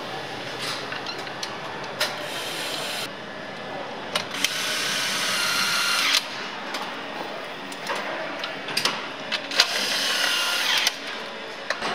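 Handheld cordless nutrunner whining in two runs, one of about two seconds and a later one of about a second, as it drives bolts on a car's front-end assembly. Scattered clicks and clanks of a car assembly line are heard throughout.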